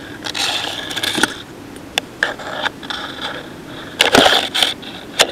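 Bursts of loud rustling and scraping from brush and leaf litter as a player pushes quickly through undergrowth, in two spells with a quieter gap between. A few sharp clicks are mixed in.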